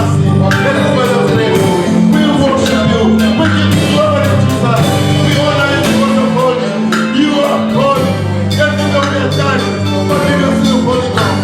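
Loud gospel band music with a steady beat, bass and singing.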